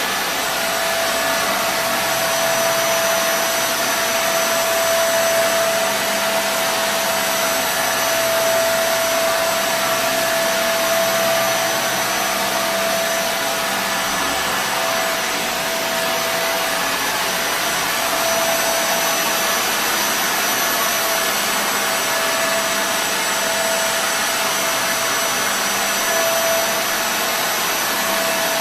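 Kenmore Intuition 116.31040900, a Panasonic-built direct-drive bagless upright vacuum cleaner, running steadily: a rush of air with a steady motor whine over it.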